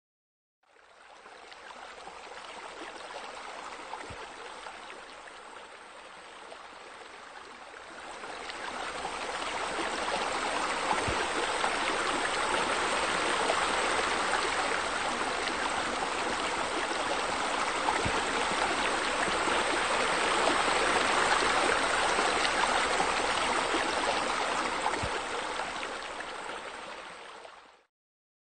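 Steady running water, like a stream or spillover, fading in, growing louder about eight seconds in, and stopping shortly before the end.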